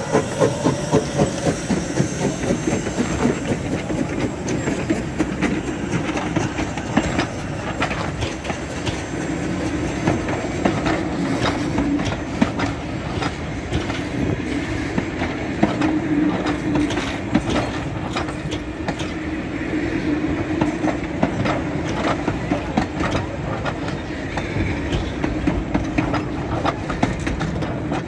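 Narrow-gauge steam locomotive pulling away, its regular exhaust chuffs heard for the first couple of seconds as it passes close, then a train of wooden passenger coaches and a goods van rolling slowly past with a steady rumble and clickety-clack of wheels over the rail joints.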